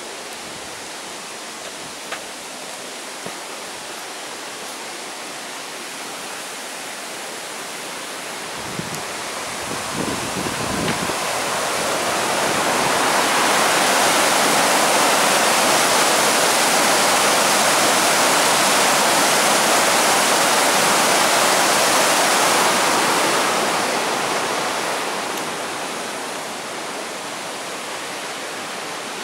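Water rushing down a concrete spillway channel, a steady white-water rush. It swells louder about a third of the way in, holds through the middle, and fades again near the end.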